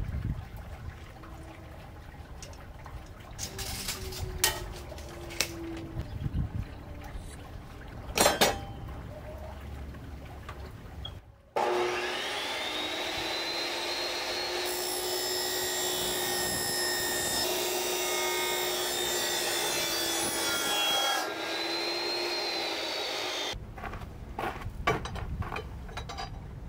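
RIDGID chop saw with a Diablo ferrous-metal blade cutting quarter-inch steel flat bar. First come clanks and clicks as the bar is set and clamped in the saw's vise. About halfway in the motor starts with a rising whine; the blade cuts through the steel with a harsher hiss for about six seconds, the motor winds down, and a few knocks follow near the end.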